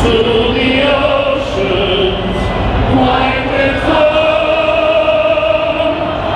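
A large crowd singing a song together, many voices in unison, with one long held note through the second half.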